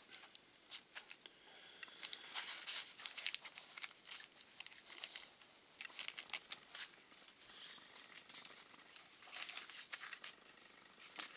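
Plastic packaging crinkling and crackling in intermittent bursts as a diecast model airliner is eased out of its clear plastic wrapping and tray, with faint clicks and rustles.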